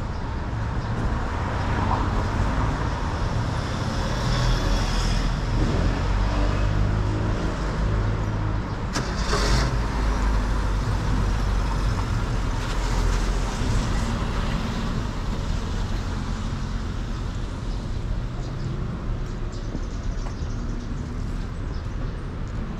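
City street traffic: cars and other vehicles passing, with a steady low engine and tyre rumble. A brief hiss comes about nine seconds in.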